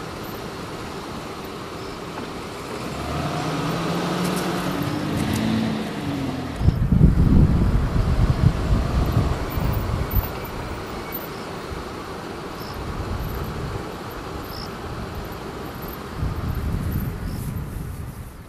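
Car engines and tyre noise close by, with one engine rising in pitch as a car moves off a few seconds in. A louder low rumble follows from about seven to ten seconds, and again near the end.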